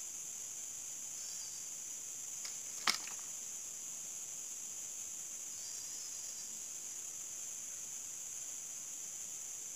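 Steady high-pitched chorus of forest insects, with one sharp click about three seconds in and two faint short chirps.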